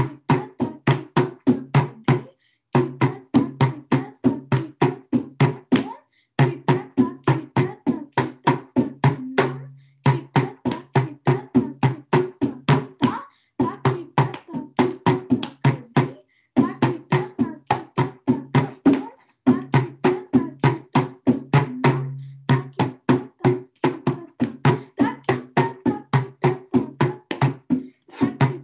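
Mridangam played as a koraippu: an even stream of sharp, pitched hand strokes, about five a second, in phrases a few seconds long with short pauses between them. A deep ringing bass stroke is held about ten seconds in and again a little after twenty seconds.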